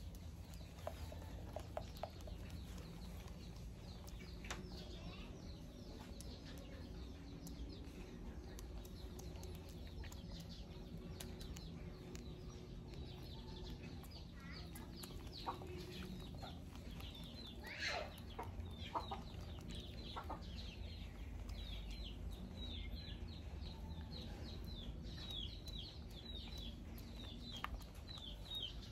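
Soft picking and rustling in hair as a young macaque grooms a person's head. Short high chirps from birds repeat throughout and come thick and fast in the second half.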